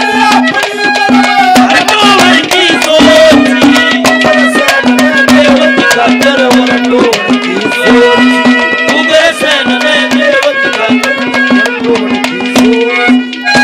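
Indian folk music played live: a melody over a steady held drone note, with quick hand-drum strokes throughout. The music stops right at the end.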